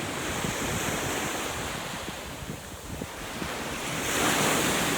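Ocean waves breaking and washing up the beach, with wind buffeting the microphone. The surf swells louder about four seconds in.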